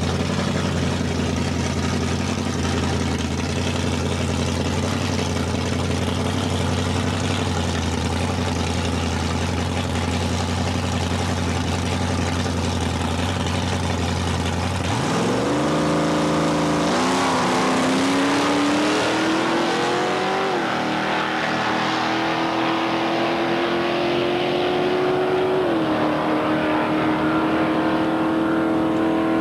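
Two drag-racing cars, one an AMC Gremlin, idle steadily at the starting line. About halfway through they launch: the engines rev up in pitch, drop back at each gear shift and climb again as they pull away down the strip.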